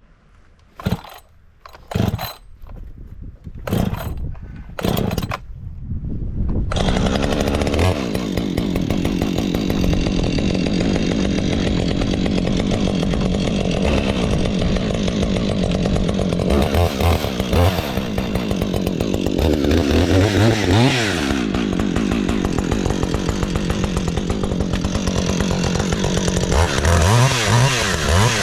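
A few short sharp sounds, then a Husqvarna 562 XP two-stroke chainsaw starts about six or seven seconds in and runs loud, revving up and down several times as it cuts into a wooden log round.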